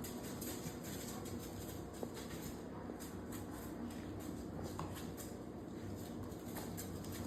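Low steady background noise with a few faint, scattered clicks and shuffling sounds.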